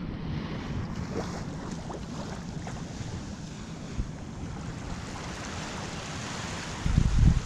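Surf washing on the beach, with wind buffeting the microphone; the buffeting gets much louder near the end.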